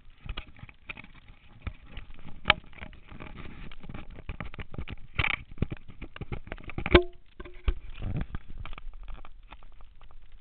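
Running footsteps crunching on a gravel track, mixed with the rubbing and knocking of a handheld camera jostled by the stride. There is a dense, irregular patter of sharp impacts, with louder knocks about two and a half and seven seconds in, the second followed by a brief squeak.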